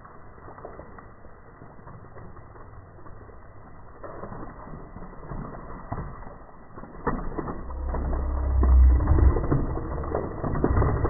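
Diet Coke and Mentos geyser erupting, its soda spray falling back onto the table and bottles: a muffled crackling that grows louder, with scattered clicks and patter from about seven seconds in and a low rumble around eight to nine seconds.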